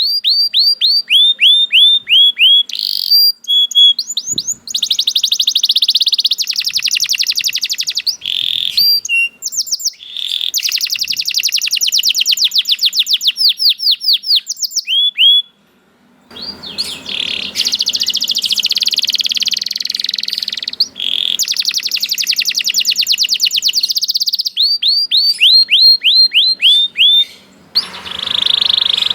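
Domestic canary singing a loud, continuous song: runs of rapid repeated down-slurred notes alternating with fast rolling trills. The song breaks off briefly about halfway through, and after the break a faint background hiss lies under it.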